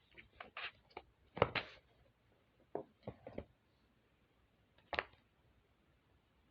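Small toys being handled and set down: a scatter of short clicks and light knocks, the loudest about a second and a half in and another near the end.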